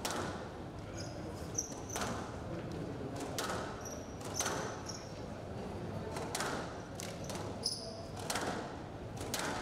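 Squash rally: the ball cracked by rackets and smacking off the court walls, about ten sharp hits at roughly one a second, with short high squeaks of court shoes on the floor between shots.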